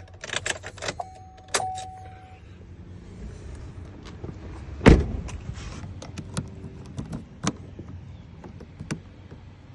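Keys and parts being handled around a pickup truck: scattered clicks and key jingles over a low steady hum, with a steady electronic tone in the first two seconds and one loud thump about five seconds in.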